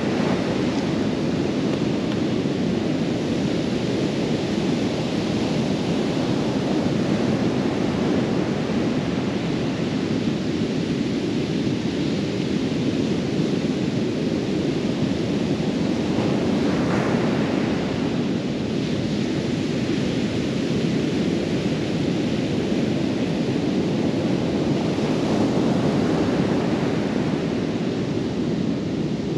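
Ocean surf breaking on the shore as a steady wash of noise, with wind on the microphone; it swells a little about halfway through and again near the end.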